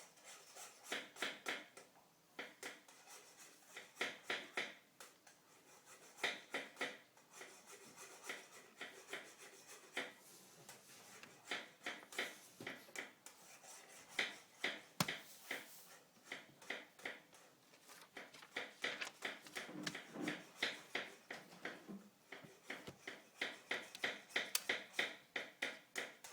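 Hands and small tools handling an HP ProBook 4420s laptop, making faint, irregular clicks, taps and rubbing in uneven clusters as the machine is worked on for repair.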